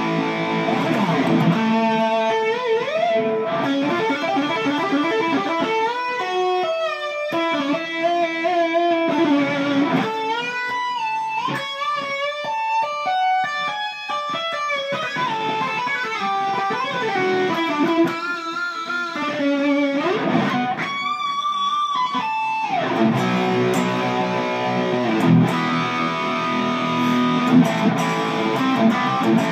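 Les Paul electric guitar played through an EVH 5150 amplifier head in loose riffing. It opens on chords, moves into single-note lead lines with held, wavering vibrato notes in the middle, and goes back to chord riffs for the last few seconds.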